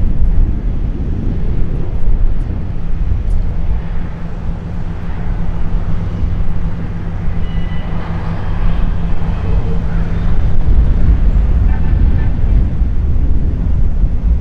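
A distant single-engine propeller plane drones steadily overhead under heavy wind rumble on the microphone.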